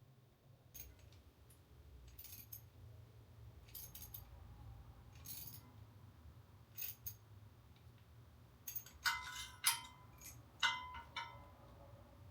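Small metal objects clinking and knocking together: a few light taps spaced a second or so apart, then a cluster of louder, ringing metallic clinks about nine to eleven seconds in.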